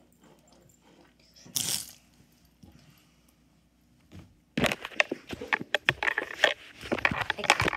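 A phone being picked up and handled, with rapid rubbing, scraping and knocking against its microphone from a little past halfway. Before that it is quiet, apart from one brief rustle.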